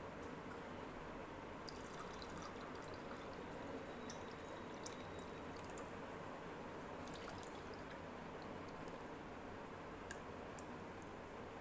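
Jamun sharbat being poured into glass tumblers: a faint, steady pouring with scattered small drips and clicks, two sharper clicks about five and ten seconds in.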